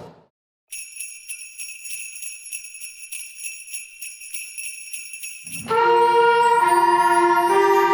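Sleigh bells shaking in a steady jingle for about five seconds. Then keyboard music with an organ-like tone comes in louder near the end.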